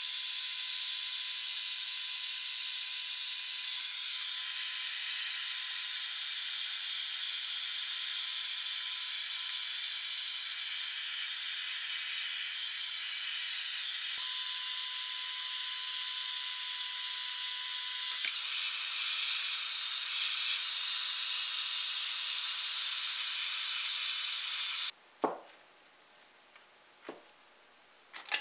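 Handheld electric heat gun running: a steady rushing hiss of blown air with a faint motor whine. It cuts off suddenly near the end, followed by a few light knocks.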